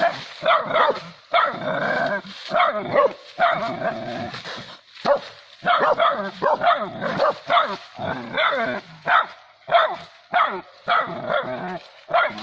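Dog barking and yelping over and over in quick, loud calls, some drawn out, as it attacks a wild cat.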